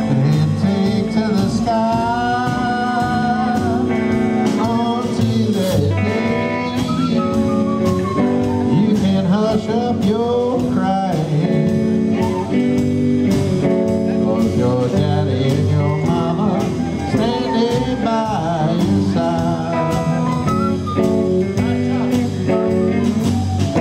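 Rockabilly band song: a sung lead vocal over guitar, bass and a steady drum beat.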